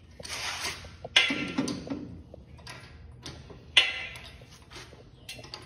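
Metal clanking in a workshop: three sharp knocks about two and a half seconds apart, each followed by a short rattle, as a race-car engine hanging from a hoist chain is worked loose.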